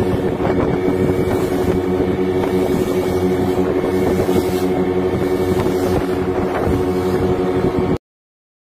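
Outboard motor of a wooden longboat running steadily at speed, with the rush of water and wind. It cuts off suddenly near the end.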